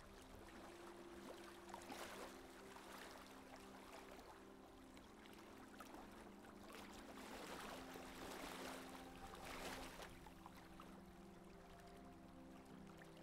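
Faint rush and wash of water along a sailing monohull's hull as it runs downwind, swelling several times as waves pass, under soft sustained background music.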